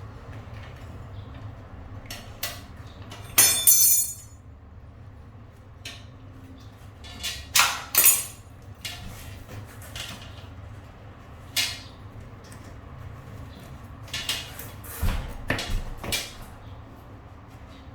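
Scattered clinks and knocks of metal tools and bicycle parts being handled during a puncture repair, with one ringing metallic clink about three and a half seconds in and a few more knocks near the middle and toward the end.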